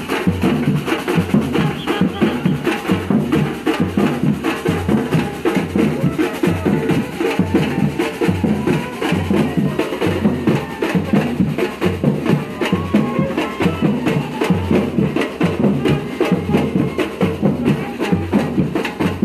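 Samba bateria drumming: large surdo bass drums keep a steady low beat under a dense, fast pattern of snare and smaller percussion.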